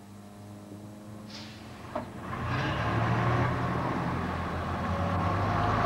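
Bus engine idling quietly, a short clunk about two seconds in, then the engine running up louder and staying steady as the bus pulls away.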